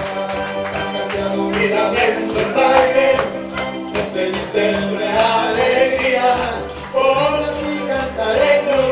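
Live gospel worship music: a band playing with singing voices over a steady bass and rhythmic percussion.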